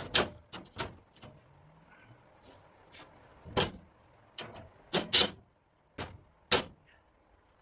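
About a dozen irregular knocks and clunks from hands-on bodywork on a 1963 International Scout body, with tools or metal parts being handled, set down and knocked into place. The loudest come about a second in and around five seconds in.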